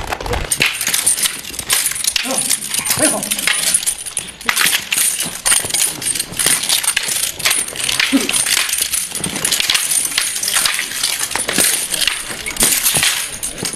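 Wooden staffs clacking against each other in quick, irregular strikes as two men spar with them.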